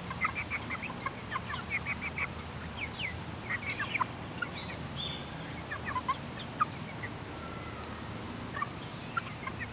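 Young Jersey Giant and Leghorn chickens peeping and chirping: many short, high calls, often falling in pitch, coming thickest in the first couple of seconds and then scattered.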